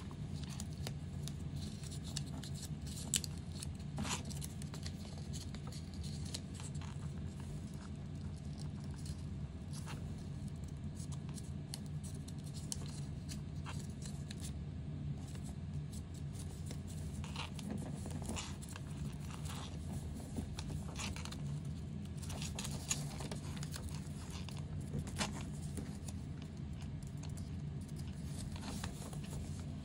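Sheet of origami paper being folded and creased by hand: scattered short crinkles, scrapes and taps at an irregular pace, over a steady low hum.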